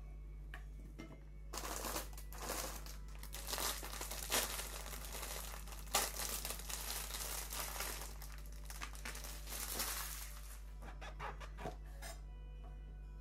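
Thin plastic bag crinkling and rustling as it is handled and pulled open, with a few sharper crackles, from about a second and a half in until about ten seconds in.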